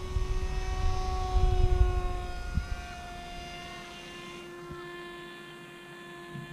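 Motor and propeller of a Volantex 757-4 Ranger RC plane in flight: a steady whine with many overtones that holds, sagging slightly in pitch, and falls away at the very end. A low wind rumble on the microphone sits under it for the first couple of seconds.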